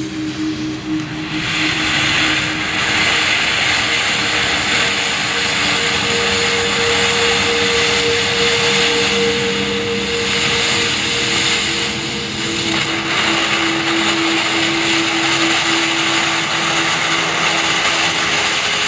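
Falling Star ground fountain firework spraying sparks with a steady hiss that swells about a second in and dips briefly midway. Underneath is a slow synth music bed of long held notes.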